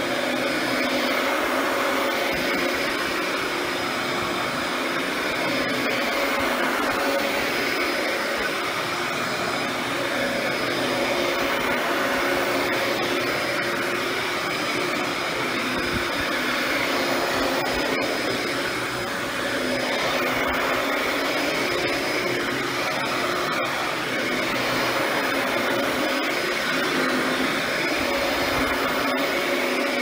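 Dyson DC14 Animal upright vacuum running on carpet, its 12-amp motor giving a steady whine with the brush roll engaged as it is pushed and pulled.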